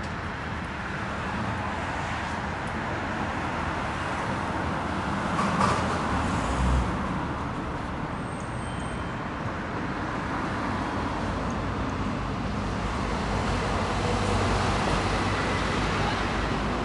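Tokyo street traffic: cars passing in a steady wash of road noise, swelling with a low rumble about six to seven seconds in and again near the end.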